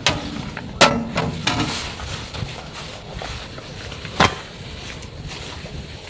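Three sharp knocks, at the start, just under a second in and about four seconds in, over a steady low background noise.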